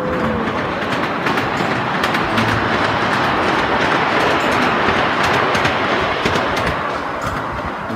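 Ride-on miniature park train running along its track, heard from aboard: a steady rolling rumble of the wheels with many quick clicks and rattles from the track, swelling a little midway.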